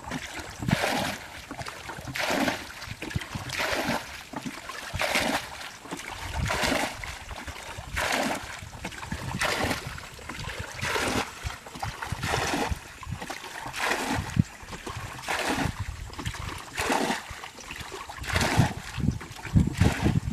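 Muddy water being bailed out of a shallow ditch with a plastic bucket: a splash of thrown water about every second and a half, in a steady rhythm.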